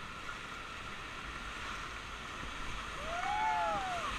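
Rushing river water, a steady hiss, with a couple of drawn-out calls rising and falling in pitch near the end.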